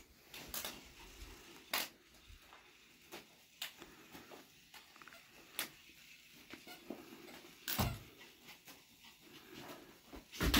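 Small dog tugging and shaking a long fabric toy snagged on a wooden stool: scattered soft knocks and rustling, the loudest a couple of seconds before the end.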